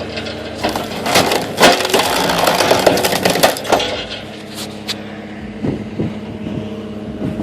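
Log splitter forcing a log apart: wood cracking, splintering and crushing over the steady drone of the machine's engine. The cracking is loudest and densest in the first half, then eases to scattered cracks.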